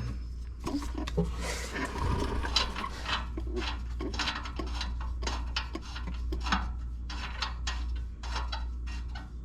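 Light metallic clicks, taps and rubbing of a bolt being spun out by hand under a car and of tools and parts being handled, over a steady low hum.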